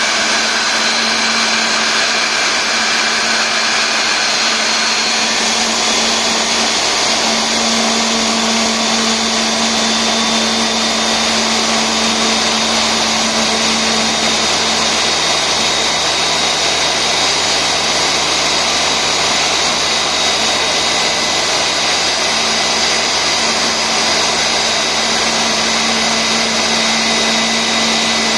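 Airbus A320 turbofan engines running, a loud steady jet roar with high whining tones that drift slowly in pitch.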